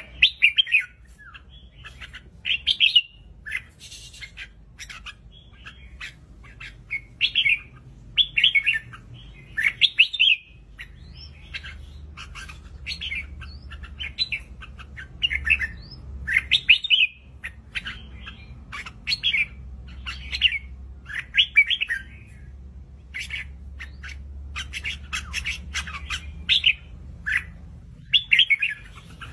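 Red-whiskered bulbul calling: short chirping phrases repeated every second or two, with faint clicks between them.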